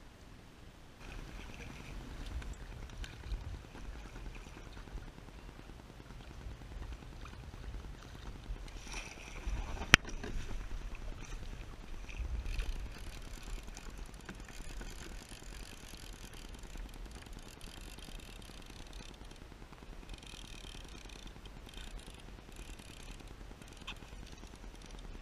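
Water lapping and splashing against a plastic sit-on-top kayak's hull, with a low rumble of wind on the camera and a single sharp knock about ten seconds in.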